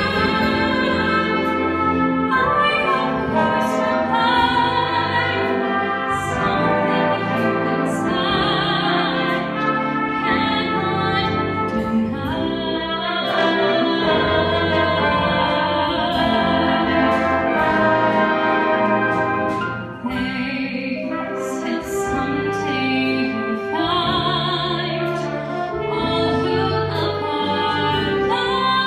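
Jazz band with brass accompanying a solo singer, whose voice wavers with vibrato over the band's sustained chords.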